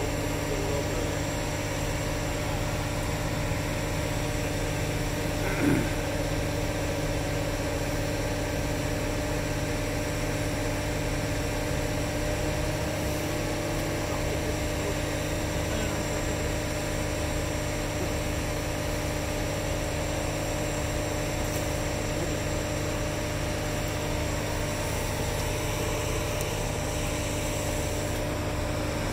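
Engine of the machine lifting the sailboat running steadily with a low drone. A brief sound that slides in pitch about six seconds in stands out above it.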